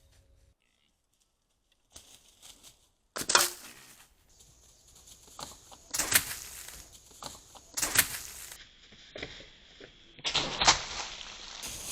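Deer snorting or blowing: four short, sharp, breathy blasts a couple of seconds apart, after a near-silent start.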